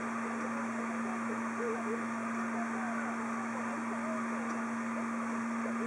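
Steady mechanical hum with one low tone, with faint short squeaks from a carbon-steel hand tap being turned slowly to cut a thread in an aluminium heatsink.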